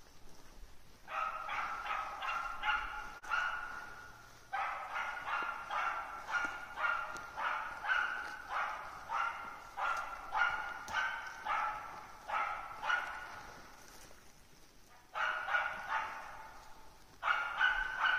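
A bird-hunting dog barking steadily, in quick runs of sharp barks about two or three a second, with a short break twice. The dog is barking at a grouse-type game bird it can see in a tree, fairly certainly, to hold it for the hunter.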